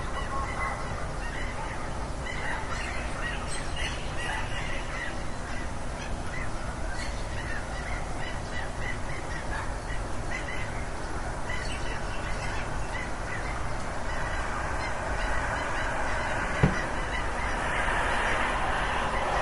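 A flock of geese honking, many short calls overlapping over a steady background hiss. A single sharp click sounds near the end.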